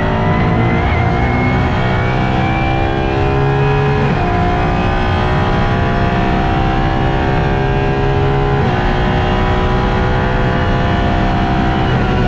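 Apollo IE's naturally aspirated 6.3-litre V12 at full throttle, heard from inside the cockpit, pulling hard up through the gears. Its note climbs steadily, drops sharply with a quick upshift into fourth about four seconds in, climbs again, and drops once more with the shift into fifth near nine seconds.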